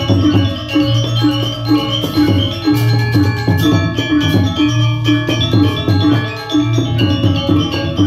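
Balinese gamelan ensemble playing a tabuh (instrumental piece), with bronze metallophones ringing over low notes that come back in a repeating pattern, alongside drum and percussion.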